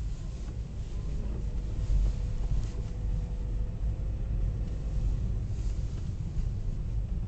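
Hyundai Solaris running with a steady low rumble. A faint drawn-out tone sounds from about a second in until about five seconds in.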